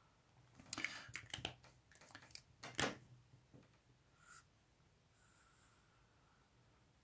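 Felt-tip marker pens being handled: a quick run of clicks and clacks as one pen is put down and another picked up and uncapped, then, about five seconds in, a few faint strokes of the marker tip on paper.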